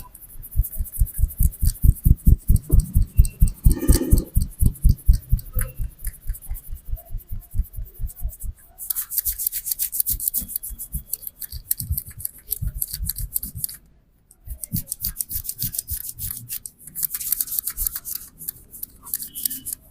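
Head massage by hand: a barber's rapid percussive tapping, dull thuds about five or six a second, changing about eight seconds in to brisk, fast rubbing strokes with a hissing, scratchy sound.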